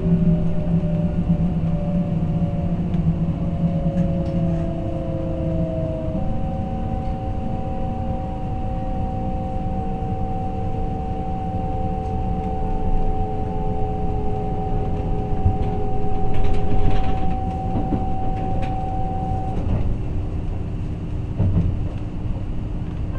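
Running sound inside a Kintetsu Ise-Shima Liner limited express car: a steady low rumble of wheels on rail, with several faint motor tones sliding slowly down in pitch. About six seconds in, a steady higher tone starts and runs until near the end. A brief louder rush comes about two-thirds of the way through.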